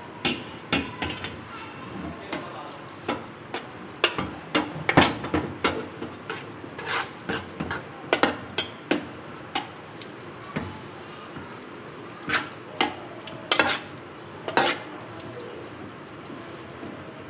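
Noodles being stirred in a metal pot with a metal utensil, which clinks and scrapes against the pot at irregular moments, over a steady hiss.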